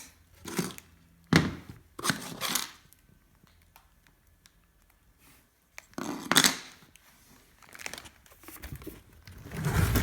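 Packing material of a parcel being handled and pulled open: rustling, crinkling and tearing of wrapping, with a few knocks, in several separate bursts.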